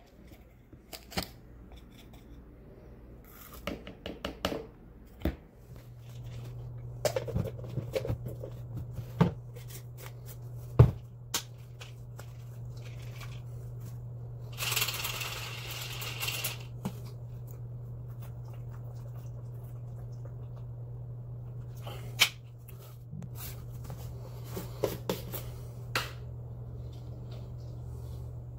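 Plastic scoop scraping powder out of a supplement tub, then a plastic shaker bottle and containers handled on a counter: a scattered run of clicks, taps and knocks, the loudest about eleven seconds in. A brief hiss comes about halfway through, and a steady low hum sets in about five seconds in.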